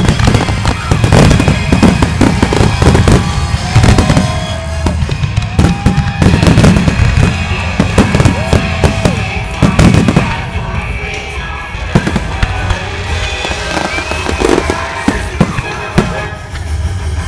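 Aerial fireworks display: a rapid, dense run of shells bursting, with sharp bangs and crackling, over music.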